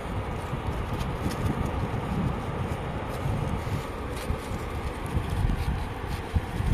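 Strong wind buffeting the microphone in a steady low rumble, with a few faint scrapes of a small metal trowel digging into wet sand.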